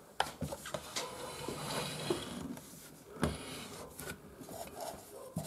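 Quiet handling noises: a few scattered clicks and knocks, the loudest a little over three seconds in, with soft rustling between them.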